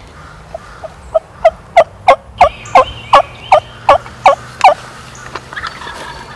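A run of about a dozen sharp turkey yelps, about three a second, growing louder over the first few and then holding loud. The yelps stop after about four and a half seconds.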